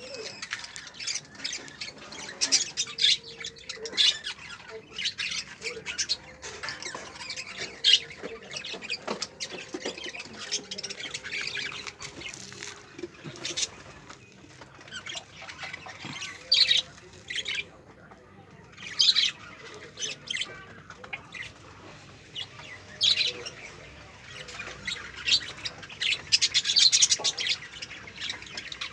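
Pet lovebirds chattering: many quick, high-pitched squawks and chirps in dense clusters, with a brief lull a little past the middle.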